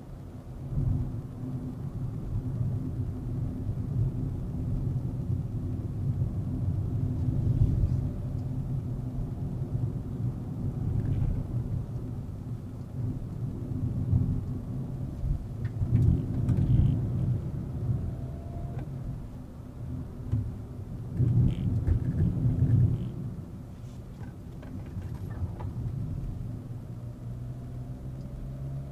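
Volkswagen Vento with a 1.2 TSI turbocharged four-cylinder engine driving along: a low, steady engine and road rumble that swells louder a few times.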